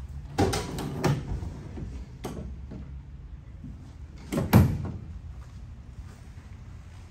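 Rear cargo door of a Mercedes-Benz Sprinter van being handled on its hinges: a few sharp metallic clunks and clicks in the first two seconds, then the loudest clunk about four and a half seconds in.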